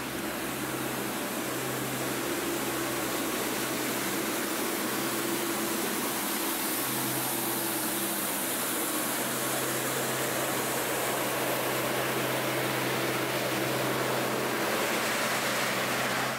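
Steady wash of distant city traffic, an even hiss with a low steady hum underneath.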